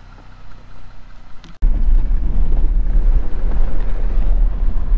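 Jeep Gladiator on a dirt trail: a steady low vehicle hum, then an abrupt cut about a second and a half in to a loud, rough low rumble of driving noise, with wind buffeting the microphone.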